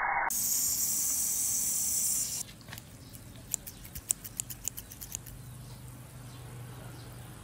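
A loud, steady hiss of water spraying from a burst water balloon, cut off suddenly after about two seconds. It is followed by a quieter run of about a dozen sharp clicks from steel scissors blades opening and closing next to a water balloon.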